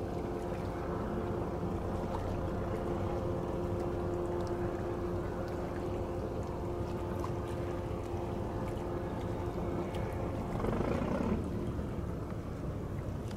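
Fast passenger ferry's engines droning steadily as it cruises past, a hum of several steady tones over a wash of water noise, with a brief louder rush of noise about ten seconds in.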